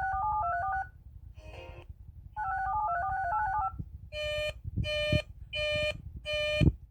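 Radio signaling tones between emergency bulletins: two quick strings of touch-tone (DTMF) dual-tone beeps, then a short burst. About four seconds in comes a run of buzzy alert beeps, four of them about 0.7 s apart with a fifth starting at the end, leading into the next bulletin.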